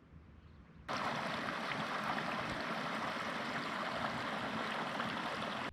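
Steady rushing water that starts abruptly about a second in and holds even until it cuts off.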